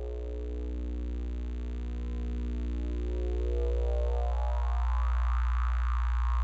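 Electronic oscillator drone from an RGB CRT sound-and-projection system. A strong steady low hum sits under a dense stack of overtones whose emphasis slowly sweeps up and down in pitch, growing gradually louder.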